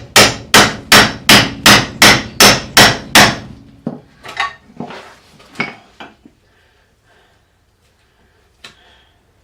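Hammer blows on a ball joint separator set on a car's old suspension ball joint, driving it to pop the joint loose: about nine sharp, ringing metal strikes, roughly two and a half a second, then a few lighter knocks and a faint click.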